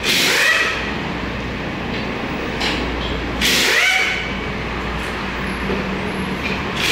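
A few short bursts of compressed-air hiss, some with a faint rising squeal, over a steady low machine hum.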